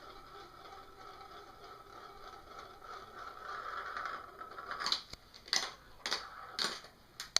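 Marbles rolling and rattling along a marble-run track with a steady ringing rumble that grows louder about three seconds in, followed by five sharp clacks as marbles knock against the track or each other.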